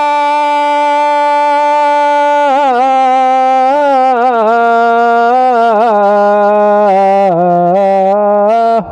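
A male singer holding one long, high sung 'aa' note, steady at first and then bending through ornamented melodic turns, in a Haryanvi devotional folk song.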